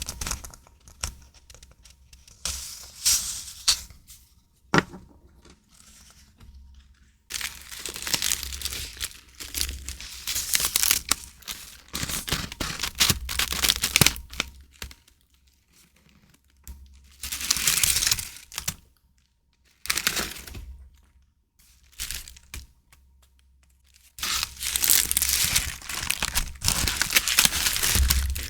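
Paper and plastic packaging rustling and crinkling as journaling stickers and papers are unpacked and handled, in irregular bursts with short quiet gaps, and one sharp click a little before 5 s.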